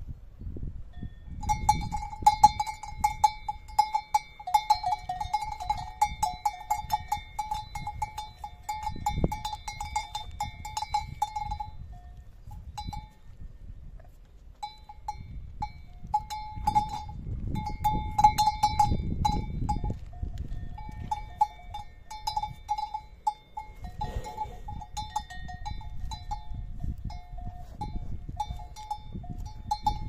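Cowbells on grazing cattle clanking in a quick, irregular jangle, with two bell pitches ringing. They stop for a couple of seconds a little before halfway, then carry on.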